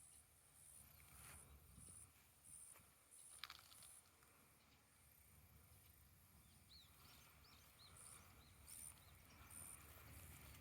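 Near silence: faint outdoor ambience with a low rumble and a faint high chirping repeating in a steady rhythm, with a few small chirps in the second half.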